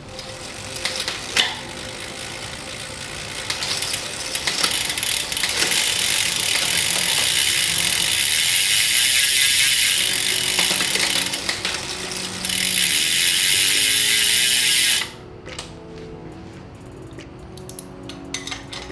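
Brompton folding bike's rear drivetrain spinning on a stand: the chain running over the H&H external 5-speed cassette and derailleur pulleys with a steady mechanical whir and hiss. It stops suddenly about fifteen seconds in, leaving soft background music.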